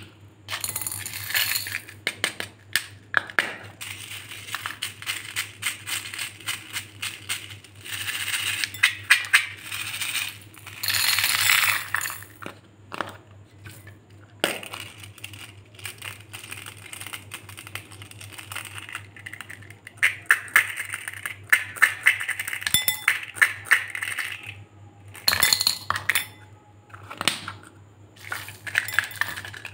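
Glass marbles and small beads clinking and rattling against plastic cups and a glass bowl as the cups are handled, tipped and set down: many irregular sharp clicks, with a few denser rattling spells.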